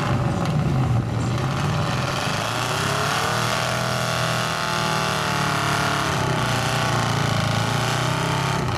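Mud truck's engine revving under load, its pitch wavering up and down.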